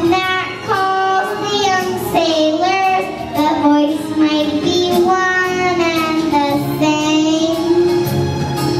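Young girl singing a song into a handheld microphone, with some music behind her voice.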